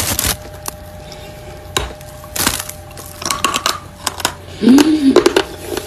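Crunchy bites and chewing of a piece of eating chalk: a sharp crack at the start, then irregular crunches, with a cluster of them near the end.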